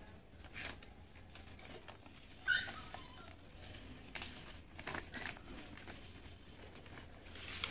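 Crinkling and rustling of a plastic packet of garden medicine granules being handled and tipped over a potted tulsi's soil, with scattered light ticks and a sharp crackle about two and a half seconds in.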